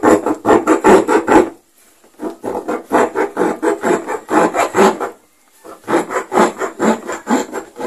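Hand-held blade sawing back and forth through the plastic wall of a jerrycan, rasping at about five strokes a second, in three spells with two short pauses between.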